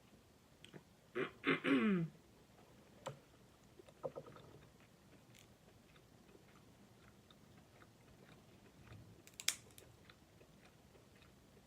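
Close-miked mukbang eating: soft chewing of crab meat with a few sharp clicks and cracks, the loudest near the end. About a second in there is a brief 'mmm' that falls in pitch.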